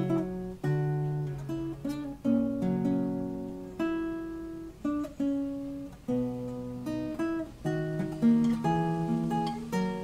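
Background music on acoustic guitar: chords and single notes plucked and left to ring, with a new one about every second.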